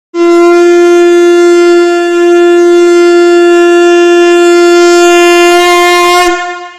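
Conch shell (shankh) blown in one long, loud, steady note, dipping briefly about two seconds in and dying away near the end.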